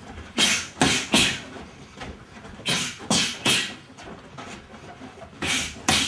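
Boxing gloves landing punches on a partner's gloves and forearms in quick three-hit combinations, parry, straight and hook, with sharp exhales on the blows. There are about three combinations, the last cut to two hits near the end.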